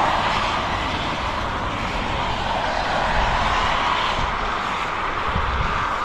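Steady traffic noise from the highway below, vehicles swelling past with a low rumble under the hiss.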